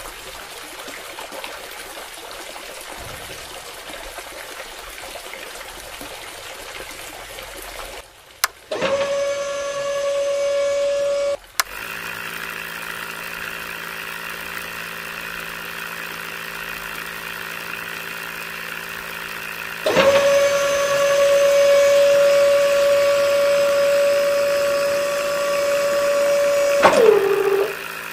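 Small DC electric motors of a toy borewell and submersible-pump rig running with a steady whine, in separate stretches: briefly about a third of the way in, then louder for most of the last third, sagging in pitch near the end as the motor slows. Between them a lower steady hum, with an even hiss of pumped water trickling at the start.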